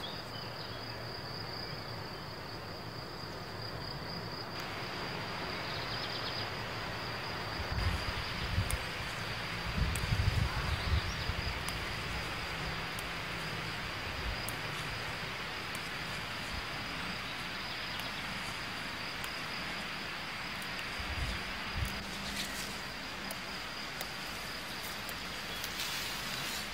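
Insects trilling in one steady high note over a soft hiss, with a few low rumbling bumps about eight to eleven seconds in and again near the end.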